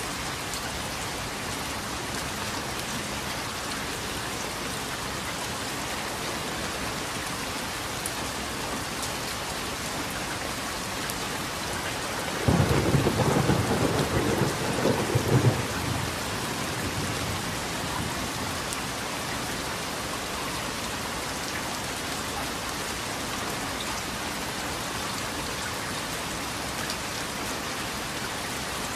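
Steady rain falling, with a sudden clap of thunder a little under halfway through that rumbles for three or four seconds and is the loudest sound.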